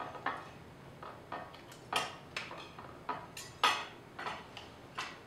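Forks and knives clinking against a plate as two people cut into and pick up food. There are over a dozen short, irregular clinks, the loudest about two-thirds of the way through.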